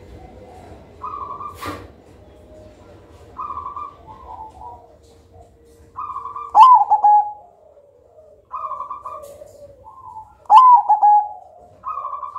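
Zebra dove (perkutut) singing its cooing song: short phrases of quick, falling coo notes repeated every couple of seconds, the loudest notes about six and a half and ten and a half seconds in. A single sharp click sounds about two seconds in.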